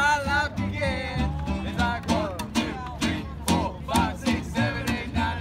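Acoustic string band playing an instrumental passage between sung verses: a fiddle melody over acoustic guitar and upright bass.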